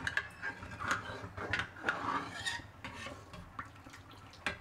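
A metal ladle stirring thin, watery masoor dal in an aluminium kadai, knocking against the pan several times, the sharpest knock near the end. In between, a ladleful of dal is lifted and poured back in with a liquid splash.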